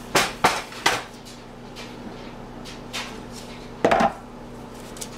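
Hard clacks and knocks of a multi-bar soap cutter being handled and set down on a table: three sharp clacks in the first second, then a louder clatter about four seconds in.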